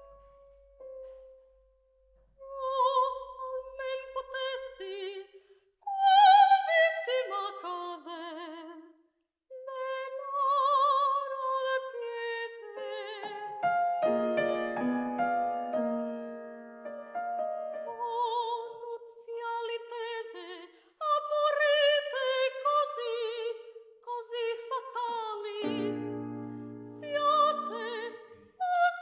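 Operatic soprano singing in Italian with a wide vibrato, in phrases broken by short pauses, accompanied by a grand piano. Piano chords are held beneath the voice about halfway through and again near the end.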